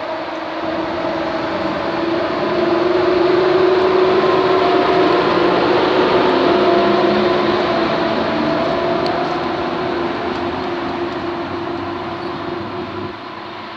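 EP07 electric locomotive hauling an Intercity passenger train past: wheels rumbling on the rails with a steady droning hum. It grows louder over the first few seconds, then fades as the coaches roll by.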